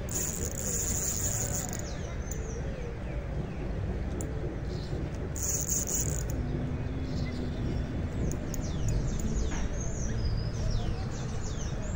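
Outdoor ambience with birds chirping: a run of quick, short falling chirps over the last few seconds. Two brief high buzzing bursts come near the start and about five seconds in, and a low steady rumble lies under everything.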